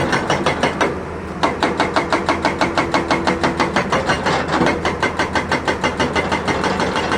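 Excavator's hydraulic breaker hammering rapidly, about eight blows a second, over the machine's steady engine running, with a brief pause about a second in.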